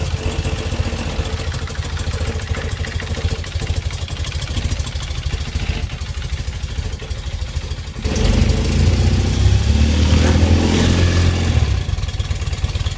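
BMW R80's air-cooled flat-twin engine idling steadily on its first run after a rebuild, then revved about eight seconds in, the pitch climbing and dropping back to idle some four seconds later.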